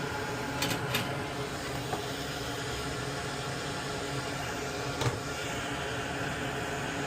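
Steady whirring hum of a small fan-driven machine, with a few light clicks and taps about a second in and again around five seconds in.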